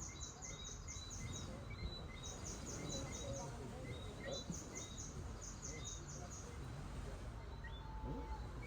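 Seaside ambience: a steady low wash of the sea under small animals calling in repeated high chirps. The chirps come in short rapid trains, with softer notes repeating a few times a second beneath them.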